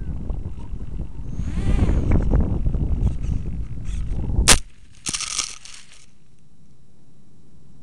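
Crash-landing of a foam RC plane recorded by its onboard camera: wind rushing over the microphone in flight, then a sharp crack about halfway through as it hits the ground. After the crack comes about a second of crackling as it scrapes through grass, and then the wind noise is gone, leaving only a faint hiss.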